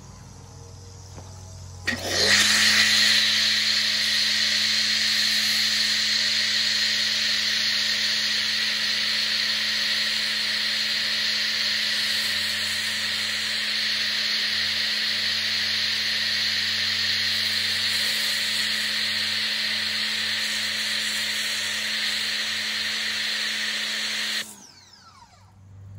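Pressure washer running with a foam cannon, spraying soap foam onto a pickup: a steady motor-and-pump hum under the loud hiss of the foam spray. It starts abruptly about two seconds in and cuts off shortly before the end when the trigger is released.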